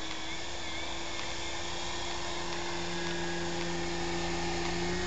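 Skywing MXS radio-controlled aerobatic plane's motor and propeller whining at a steady pitch during a knife-edge pass, with a second, lower tone joining about one and a half seconds in.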